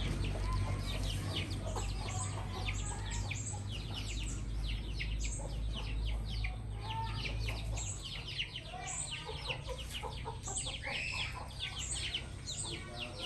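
Many small birds chirping rapidly and continuously, with a low hum underneath that stops about eight seconds in.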